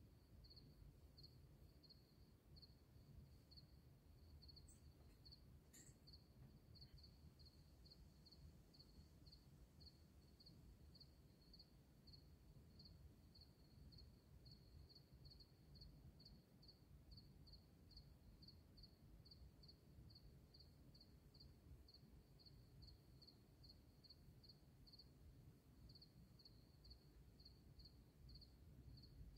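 Faint insect chirping: one short high chirp repeated about twice a second, over a low rumble.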